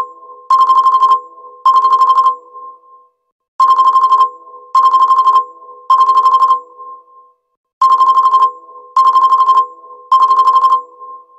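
An LG Prada 3 (P940) ringtone played on a Xiaomi Redmi 9: a trilling electronic phone ring. Each ring lasts about half a second and comes in groups of three, a new group about every four seconds.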